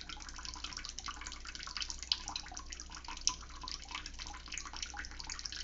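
Running water splashing steadily, a dense crackle of small splashes and drips, over a low steady hum.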